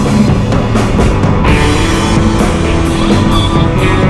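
Rock music with a steady drum beat, laid over the footage.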